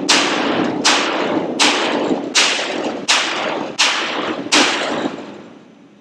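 Steady hammer blows on metal, about three every two seconds, each ringing out and echoing through a large workshop hall. The blows stop about five seconds in.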